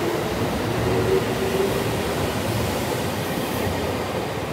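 Electric multiple unit (JR Central 313 series 8000 coupled to a 211 series) pulling out of the station: wheels running on the rails with a steady motor hum, the sound easing off near the end as the last car moves away.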